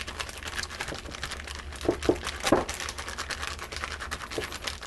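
A plastic bag worn over a hand crinkles and rustles as it rubs fat over bread dough in a glass bowl, with a few soft knocks along the way.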